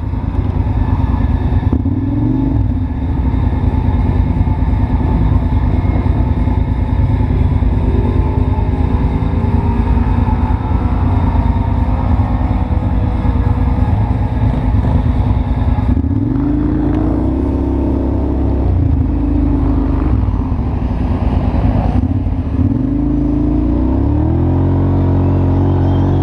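ATV engine running, revving up several times with rising pitch, then climbing to a higher steady pitch near the end as the quad pulls away up a trail.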